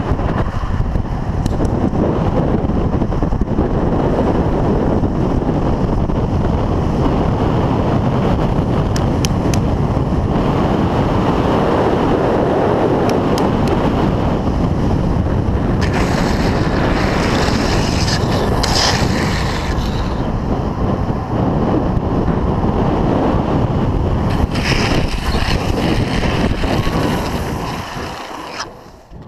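Wind roaring over a helmet-camera microphone at downhill longboard speed, mixed with the rumble of urethane wheels rolling on asphalt. Twice it turns to a higher, hissier rush, the second time as the riders slide their boards through a hairpin, and the noise falls away sharply right at the end as the speed drops.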